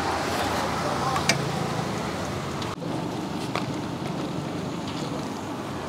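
Hot oil sizzling steadily in a large kadai, deep-frying chicken pakoda, with a few light clicks.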